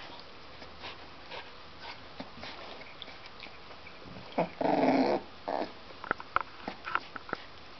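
American Staffordshire Terrier dogs, a mother with her young puppies: a short growl about halfway through, a briefer one just after, then a few short high sounds.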